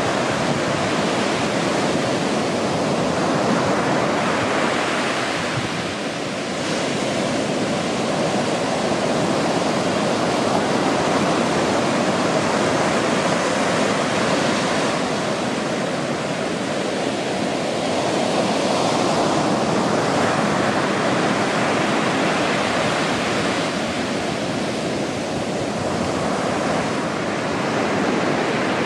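Ocean surf washing on a sandy beach: a steady rush of noise that swells and eases every several seconds as waves break.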